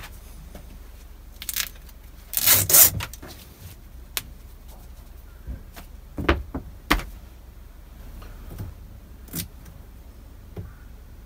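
Adhesive tape being peeled off a boat's steering cable in a few short rips, the loudest about two and a half seconds in, with light clicks and taps of the cable now and then.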